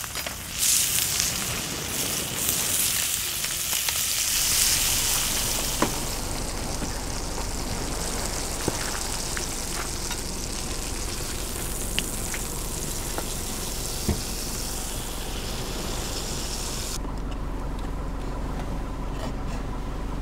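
Food sizzling in a pan, with a few sharp clicks along the way. The sizzling cuts off about 17 seconds in, leaving a low steady hum.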